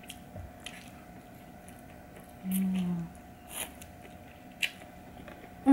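Eating egg noodles with chopsticks: a few short slurps and wet chewing sounds spread out, with a brief low closed-mouth 'mm' falling in pitch about two and a half seconds in.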